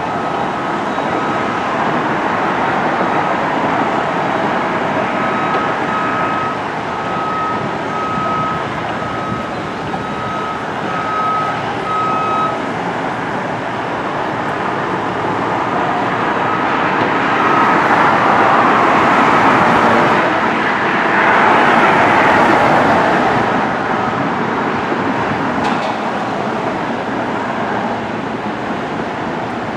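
Steady vehicle and traffic noise with a reversing alarm beeping repeatedly through the first part. Two louder swells of noise pass by past the middle.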